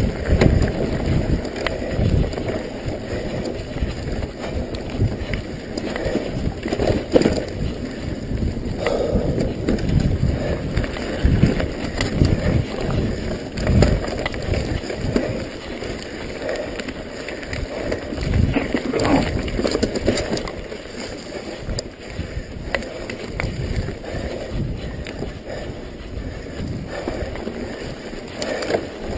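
A mountain bike rolling fast over a dirt trail, heard from a head-worn camera: wind buffeting the microphone, with irregular low thumps and rattles as the bike goes over bumps.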